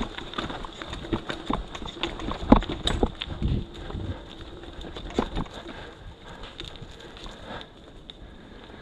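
Mountain bike clattering over a rough trail: irregular knocks and rattles from the bike and tyres on uneven ground, with a cluster of heavier jolts about two and a half to three and a half seconds in, then lighter rattling.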